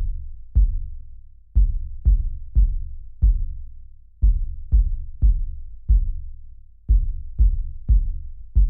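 Dark electronic kick drum hit over and over in uneven groups of two to four, each hit a sharp low thud with a deep decaying boom.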